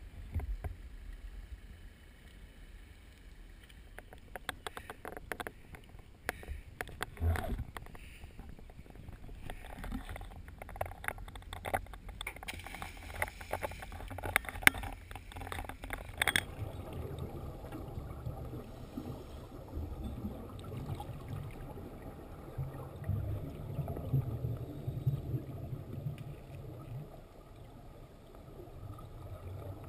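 Scattered knocks and clatter of scuba gear being handled, then a splash as a diver jumps into the water. About halfway through, the sound turns to the muffled low rumble and bubbling heard underwater through a GoPro housing.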